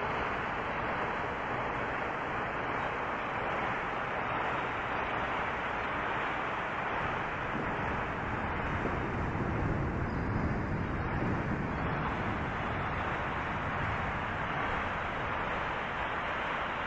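Wind and rain noise picked up by the camera, processed into a steady rushing hiss with the high end cut away, swelling deeper and a little louder about halfway through.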